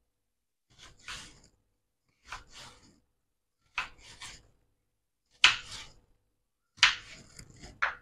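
Kitchen knife slicing a peeled raw green mango into long strips on a wooden cutting board. Six short, crisp cuts come about one every second and a half, the loudest two in the second half.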